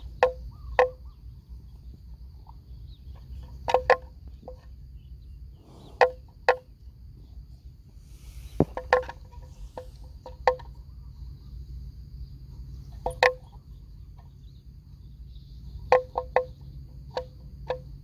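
Hollow wooden clonks from a water buffalo's wooden bell as it grazes, coming singly or in quick clusters of two or three every couple of seconds. A steady high insect whine runs underneath.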